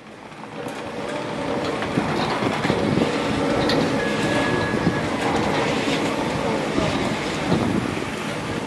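Leitner chairlift station running: a steady mechanical rumble with rattling and clicking as the chairs and cable pass around the bullwheel. It fades in over the first two seconds.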